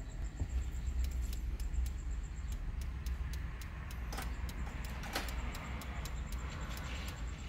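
Light, irregular clicks, many in quick runs, typical of a Mercedes rotary infotainment controller being turned through its detents to scroll the CarPlay screens. Under them runs the low, steady rumble of the G-class idling, heard from inside the cabin.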